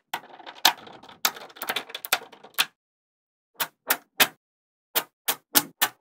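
Small metal magnet balls clattering and clicking against each other for about two and a half seconds, then a run of separate sharp clicks as pieces snap together.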